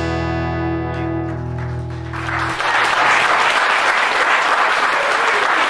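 Final strummed chord of an acoustic guitar ringing out, then audience applause breaking out about two seconds in and continuing.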